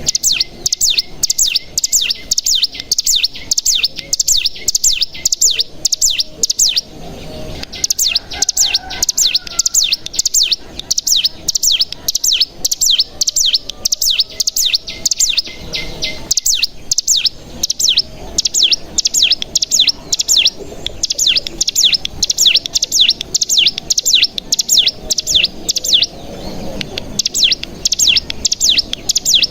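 Ciblek gunung (cigun), a prinia, singing its rapid 'bren' trill: a long, fast series of high, downward-slurred notes, breaking off briefly about 7 and 16 seconds in.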